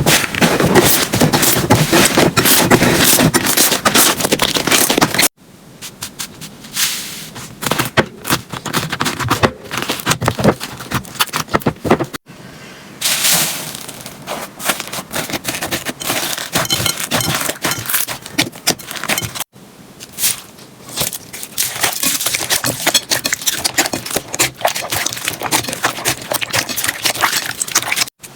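Slime being pressed and played with by hand, giving a dense run of crackling, popping clicks. The sound changes abruptly three times as one clip gives way to the next, loudest in the first part.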